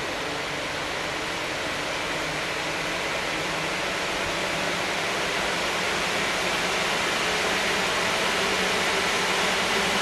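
Electric cooling fan on a car radiator running, a steady rushing hiss of air being blown through the radiator core that grows slowly louder.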